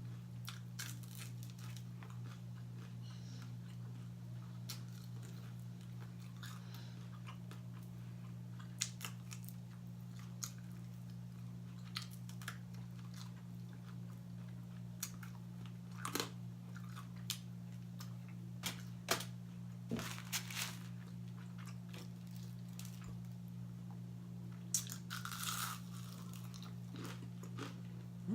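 Close-miked chewing and biting of crispy fried chicken wings, with sharp irregular crunches scattered throughout. A steady low hum runs underneath.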